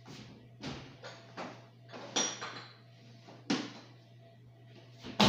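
Kitchen handling noises: a string of separate knocks and clinks of containers and kitchenware being moved about, ending in one sharp, loud knock near the end.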